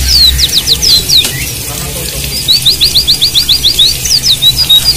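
White-eyes (Zosterops, pleci) chirping: quick high downslurred notes, a short lull around the middle, then a fast run of short repeated notes, about seven a second, before more chirps.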